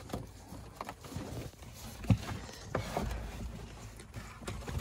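Scattered light knocks, clicks and rustling as a car's interior side trim panel is worked loose and handled, with a couple of sharper knocks a little past two seconds in.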